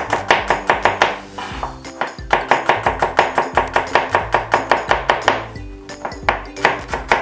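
Kitchen knife chopping garlic cloves on a cutting board: quick sharp taps about five a second, in three runs with two short pauses, over background music.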